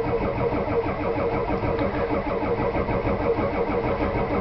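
A starter motor cranks a 7.3 IDI diesel engine in a steady, even rhythm, and the engine does not catch. The owner blames a failing starter that cranks slowly, not the batteries or the wiring.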